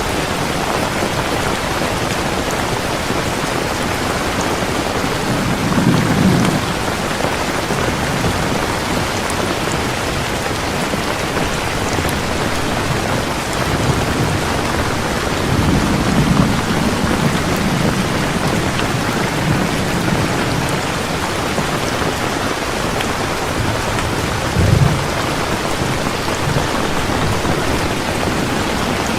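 Heavy rain falling steadily, with low rolls of distant thunder: one about six seconds in, a longer one in the middle, and a short one near the end.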